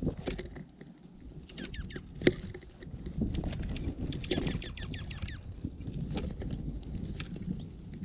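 Small songbirds at a seed feeder chirping in two quick runs of falling notes, one about a second and a half in and another near the middle. Sharp clicks of beaks pecking seed on the feeder tray come through, over a low rumble of wind on the microphone.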